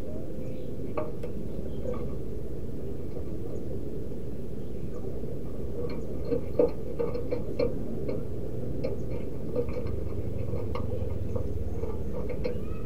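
Zebra doves (perkutut) giving short, clipped call notes in scattered runs, the loudest about six and a half seconds in, over a steady low background noise.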